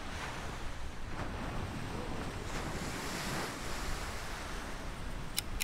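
Surf breaking and washing up the beach, with wind buffeting the microphone. Near the end a quick run of sharp, evenly spaced clicks begins.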